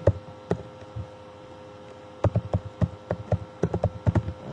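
Computer keyboard being typed on: a few separate keystrokes, then a quicker run of keystrokes from about two seconds in, over a faint steady hum.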